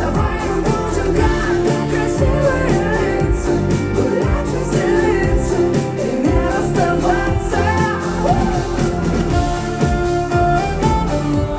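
Live pop song played by a band, with a woman singing over it at a steady loud level.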